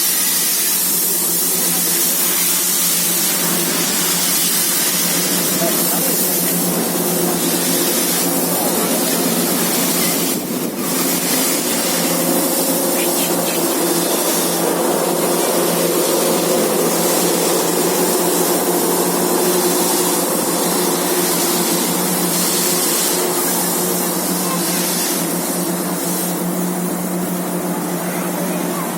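Steam locomotive hissing steadily as steam escapes, over a steady low hum.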